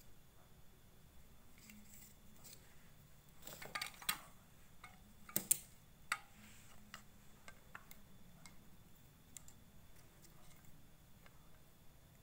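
Handling knocks and clicks as a salvaged sewing-machine motor with a homemade plastic fan is moved about and set down on the floor; a few louder knocks come around four and five and a half seconds in, with light taps between.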